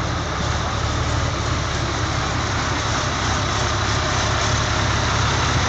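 The 38-litre V12 tank diesel engine of the world's heaviest motorcycle running at idle, a low, steady rumble.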